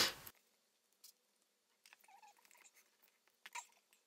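Faint, scattered taps and rustles of fingers pressing foam mounting tape onto a paper card frame, with near-silent gaps between them; the plainest tap is about three and a half seconds in.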